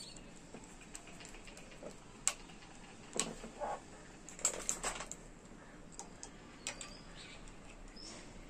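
Scattered small clicks and taps of plastic and metal as a moped's handlebar switch housing is fitted to the handlebar and screwed together with a screwdriver. There is a quick cluster of clicks around the middle.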